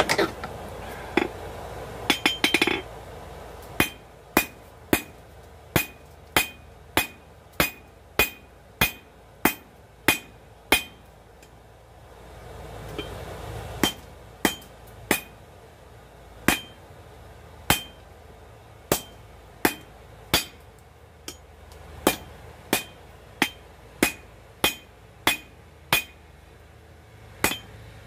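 Blacksmith's hammer striking hot coil-spring steel on an anvil while forging a knife blade. The blows come steadily at about two a second, each with a bright ring, and stop briefly partway through.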